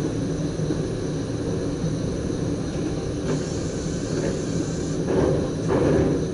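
SGM Sprinter electric multiple unit running along the line, heard from inside the driver's cab: a steady rumble and rush of wheels on rail. It grows briefly louder twice, about five and six seconds in.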